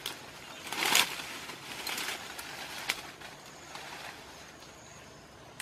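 Leaves and vines of dense undergrowth rustling as they are pushed aside and grabbed by hand, in irregular bursts, the loudest about a second in, with a sharp snap near three seconds. Faint bird calls in the background.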